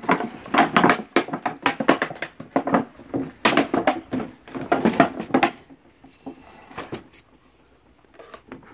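A hollow clear plastic container knocking and scraping on a wooden deck as a large dog noses and pushes it about, with water splashing out of it at the start. The knocks come thick and fast for about five seconds, then thin out to a few faint ones.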